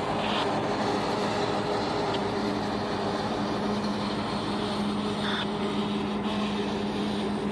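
CSX road-switcher diesel-electric locomotive running as it rolls slowly past, a steady engine hum over the rumble of the train.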